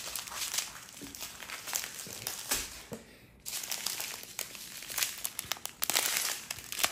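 Small plastic bags of diamond-painting drills being handled and sorted, crinkling in the hands, with a brief lull a little before halfway through.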